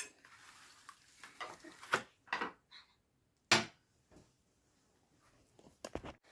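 A few scattered knocks and clinks of dishes and cutlery being set down on a table, the sharpest about three and a half seconds in and a quick cluster near the end, with near quiet between.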